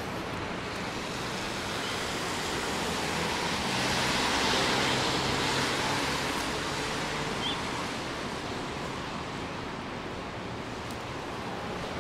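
Steady hiss of rain on a city street with a low traffic hum. A vehicle's tyres swish past on the wet road, swelling to a peak about four seconds in and fading away.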